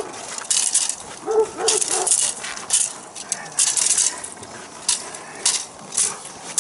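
A dog gives three short whines or yelps about a second and a half in, among repeated crunching and scuffling of feet and paws in snow as it tussles with its handler.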